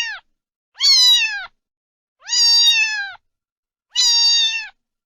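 Domestic cat meowing over and over: three full, evenly spaced meows plus the tail of one more, each high-pitched and level before dropping off at the end.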